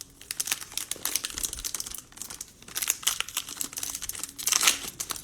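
Cellophane wrapper of a baseball card cello pack crinkling and being torn open, with the cards handled, in irregular crackling spells that are loudest near the end.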